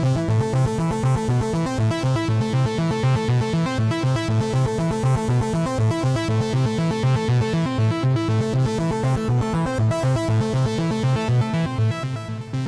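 Arpeggiated synthesizer from Zero-G's Ethera Soundscapes 2.0 Kontakt library, played from a keyboard: a fast, steady run of repeating notes over a sustained low bass.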